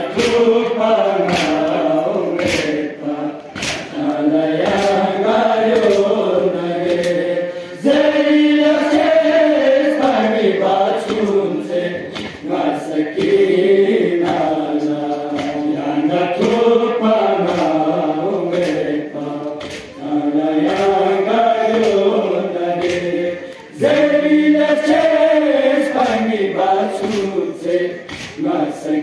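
A Balti noha, a Shia mourning lament, chanted unaccompanied by a group of men in chorus, in repeating phrases about four seconds long. Sharp slaps of chest-beating (matam) run through the chant.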